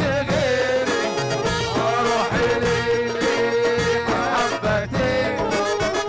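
Egyptian folk song played live by a band of keyboard, hand drums, brass and reed pipe, with a long held melodic note through the middle.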